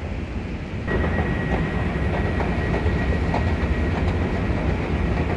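Low, steady rumble of an underground railway station, starting abruptly about a second in, with a thin steady high whine and faint irregular clicks on top.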